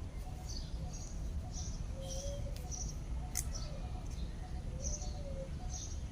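Caged birds chirping: short, high calls repeating about twice a second, with a lower gliding call twice, over a steady low rumble.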